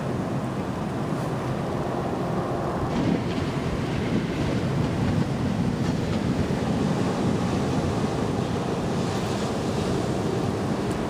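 Ocean surf breaking on a sandy beach: a steady low rumble of waves, with the hiss of washing surf swelling about three seconds in and again near nine seconds. Wind buffets the microphone throughout.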